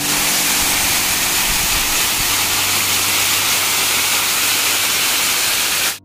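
Waterfall, water falling onto rock and splashing into a shallow pool: a steady, even rush of falling water.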